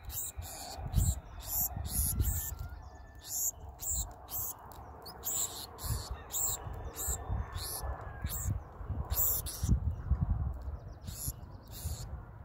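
Black-throated sparrows feeding from a hand: a quick, irregular run of short, high-pitched ticks and chips, several a second. Low rumbling thumps sound underneath.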